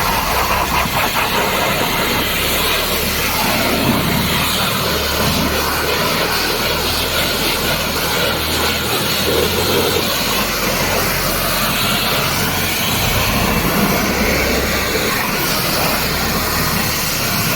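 Pressure washer running and spraying water: a steady, loud hiss with a low hum underneath.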